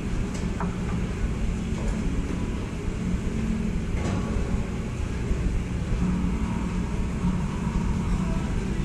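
Steady low rumble of room noise in an enclosed racquetball court between rallies. A faint sneaker squeak on the hardwood comes about half a second in, and a single sharp knock about four seconds in.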